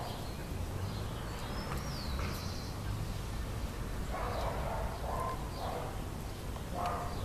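Outdoor ambience: an animal calling in short repeated bursts, twice, once around the middle and again near the end. A small bird gives a brief high descending chirp and trill about two seconds in, over a low steady rumble.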